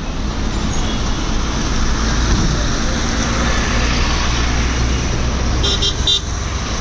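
Floodwater rushing over a road with a motorcycle engine running low underneath, and a quick run of short, high beeps about six seconds in.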